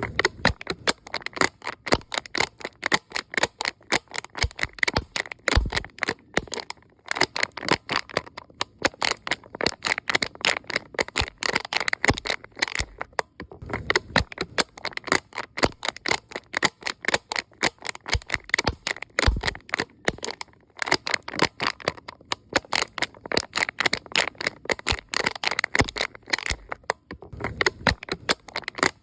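A cup being handled to make a rapid, irregular crackling of many sharp clicks, with a few short pauses.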